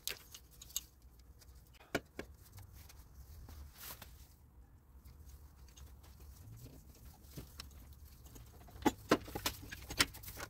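Scattered light clicks and knocks of a wrench and metal engine parts being handled in a car's engine bay, with a quicker run of clicks near the end.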